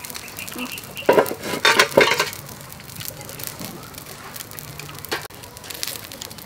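Scallops topped with glass noodles sizzling and crackling on a wire grill over a clay charcoal stove, with a light clink of metal tongs. A short louder burst of sound comes between about one and two seconds in.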